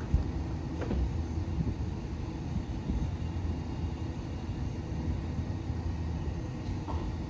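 Electric train of the Uetliberg railway running, a steady low rumble with a couple of faint clicks.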